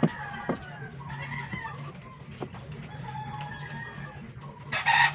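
Chickens clucking, then a rooster crowing loudly near the end, over a low steady hum. A sharp knock sounds at the very start.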